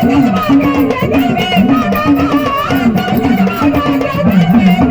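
Instrumental break in Marathi gondhal devotional folk music: a winding melody line played over fast, steady hand-drum beats, with no singing.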